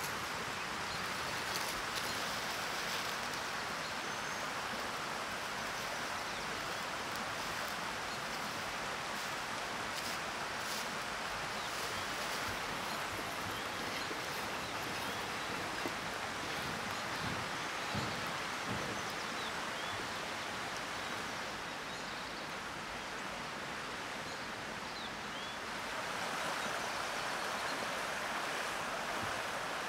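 Wood and dry-leaf fire crackling now and then over a steady rushing outdoor background, with a few faint bird chirps.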